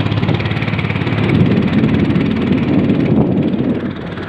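Engine of a ketinting, a small long-tail motor canoe, running steadily under way, with a fast, even pulsing.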